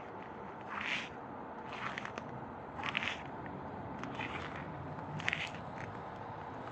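Footsteps crunching and squeaking in snow, about one step a second, over a steady outdoor hiss.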